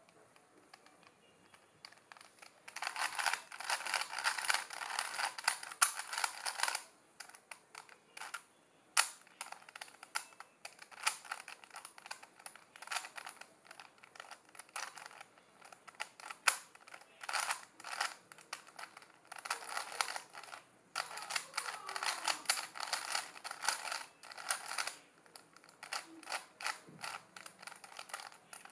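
Plastic layers of a GJ DIY Type-A 3x3x3 speed cube clicking and clacking as they are turned quickly by hand. The turns come in bursts of rapid strokes a few seconds long, with short pauses between them, starting about three seconds in.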